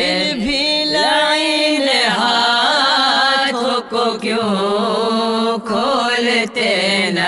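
A marsiya, an Urdu elegy of Muharram mourning, chanted: a voice draws out a wavering melodic phrase between lines of verse over a steady held low note, with short breaths.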